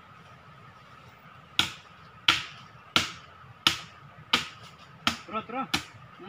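A blade chopping into a tree trunk: six sharp strokes about two-thirds of a second apart, starting about a second and a half in. The trunk is being cut open to reach a wild bees' nest for its honey.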